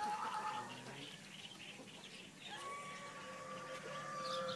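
Farmyard poultry calling faintly: a short call at the start, then one long, steady call held for about two seconds near the end, with faint high chirps throughout.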